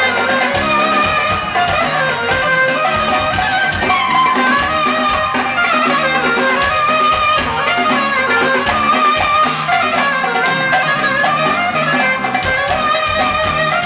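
Live band music played loud in a club, heard from among the audience: a wavering lead melody over a steady beat.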